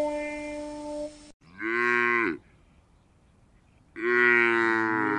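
A held musical chord cuts off about a second in. Then a cow moos twice: a short moo, and a longer one starting about four seconds in, each rising and then falling in pitch.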